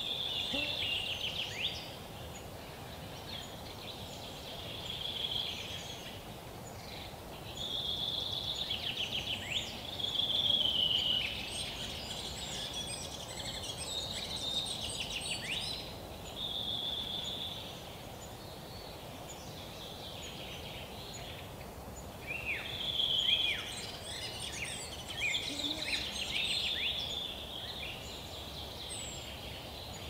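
Eurasian three-toed woodpecker nestlings begging from inside the nest hole: repeated bursts of rapid, buzzy trilling, one to two seconds each, with other birds chirping in the background.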